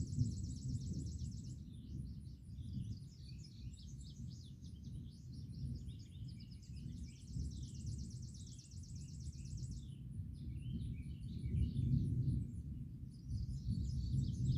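Low rumble of distant thunder swelling and fading, with songbirds chirping over it. A fast, dry bird trill ends in the first couple of seconds and another runs from about seven to ten seconds in.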